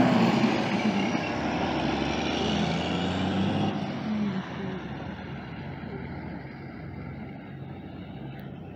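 Diesel engine of an International cabover semi tractor pulling a box trailer away, loud at first and fading steadily as it moves off.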